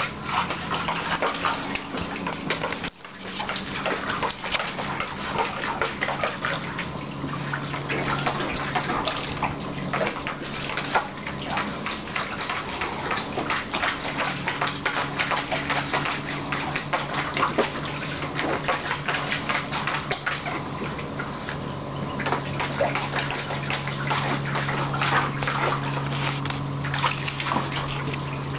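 A Staffordshire bull terrier pawing and splashing in a plastic paddling pool full of water, with continuous irregular splashing and sloshing.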